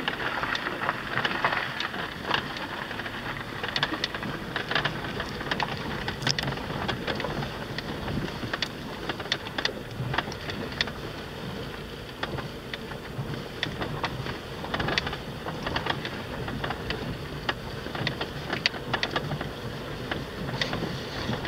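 A car driving on a rough gravel track: tyres crunching over loose stones, with many small knocks and clicks of stones and the car's body rattling over potholes and bumps.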